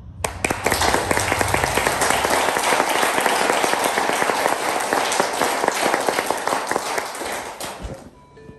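Audience applauding: many hands clapping together, starting abruptly and dying away near the end.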